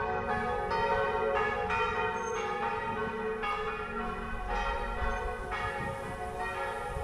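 Church bells ringing a peal: several bells struck one after another, about two strokes a second, each tone ringing on and overlapping the next.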